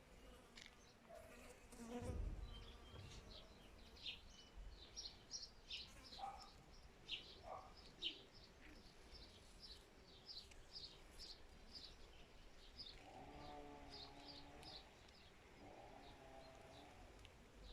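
Faint outdoor garden ambience: a small bird gives a long run of short, high chirps, about two a second, while an insect buzzes twice in the second half. A low thump about two seconds in is the loudest moment.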